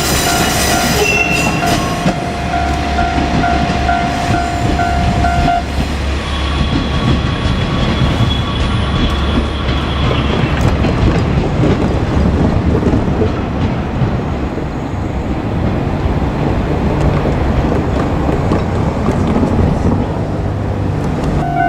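JR Kyushu KiHa 47 diesel railcars running past at a level crossing, a steady diesel rumble with wheels clacking over the rail joints. The crossing's warning bell rings over the train for the first few seconds, then stops.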